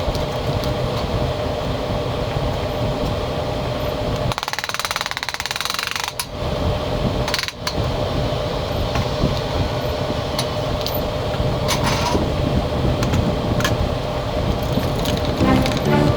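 A power tool runs steadily with a rough, rattling grind and a constant hum, pausing and changing briefly a few seconds in. Music comes in near the end.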